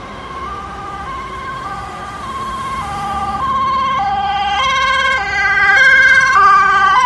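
Emergency vehicle's two-tone siren alternating between a high and a low note about every half second or so. It grows steadily louder as it approaches and is loudest about six seconds in.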